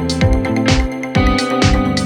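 Background electronic music with a steady dance beat: kick drum and hi-hats over sustained synth chords.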